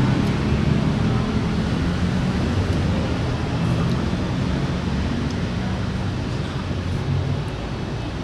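Steady vehicle and road noise: an engine running under a constant rush, easing off slightly towards the end.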